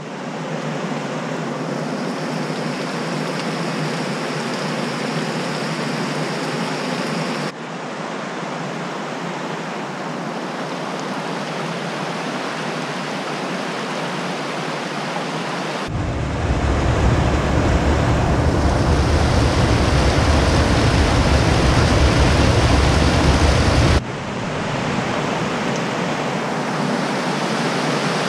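Creek water rushing over small rock-ledge cascades, a steady splashing rush. Its character changes abruptly three times, and a deeper low rumble sits under it for a stretch in the middle.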